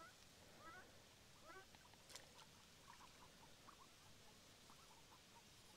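Faint, short, wavering peeps and soft calls from a duck family, a hen with her ducklings, swimming close by, a few calls a second over a quiet background hiss. A single faint click about two seconds in.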